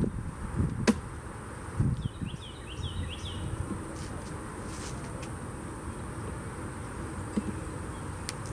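Honeybees buzzing around an open-air hive, with a sharp click about a second in and a dull thump just before two seconds. A short run of high chirps follows just after two seconds.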